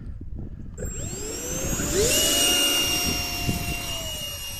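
Two electric ducted fans on an RC flying wing spooling up one after the other, about one and two seconds in, rising into a steady high whine at full power for a takeoff run from grass.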